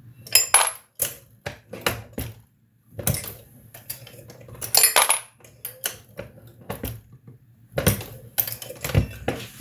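Dillon RL 550C progressive reloading press being worked by hand: clusters of sharp metallic clicks and clinks as the shell plate is turned and the handle is stroked to seat and crimp the last .38 Special bullet.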